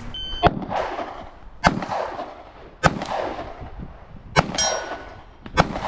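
Handgun fired slowly at a steel target 40 yards away: five shots about one and a quarter seconds apart, each echoing across the range. A ringing ping of steel follows the fourth shot. A short beep comes just before the first shot.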